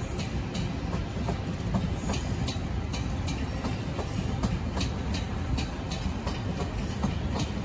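Taiwan Railways E1000 push-pull Tze-Chiang express cars passing: a steady rumble of steel wheels on the rails, with regular clickety-clack clicks from the wheels over rail joints, about two to three a second.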